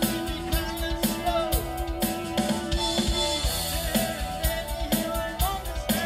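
Rock band playing live: a drum-kit beat under electric guitars and bass, with a long held note that ends a little past halfway and bending notes above it.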